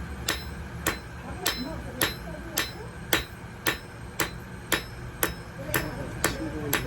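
Blacksmith's hammer striking hot metal on an anvil in a steady rhythm of about two blows a second, each blow ringing briefly.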